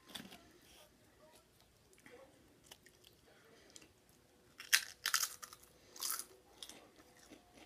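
A crunchy chip being bitten and chewed close to the microphone. Near the end come a few loud crisp crunches in quick succession, the loudest just under five seconds in.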